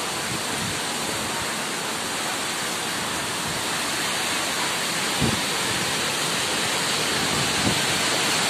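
Torrential rain in a steady, heavy rush, with a brief dull thump about five seconds in.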